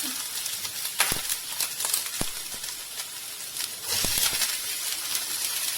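Chopped vegetables sizzling in hot oil in a pan, with a few sharp knocks about one and two seconds in.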